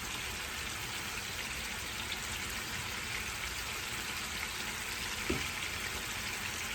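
Ground beef sizzling in a frying pan, a steady hiss.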